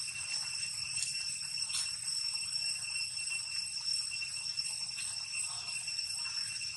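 Insects droning steadily at a high pitch, a continuous outdoor chorus with a few faint ticks.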